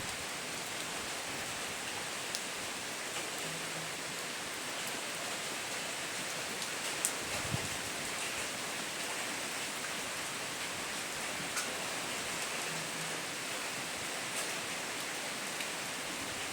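Steady rain falling, an even hiss with a few louder drops ticking now and then.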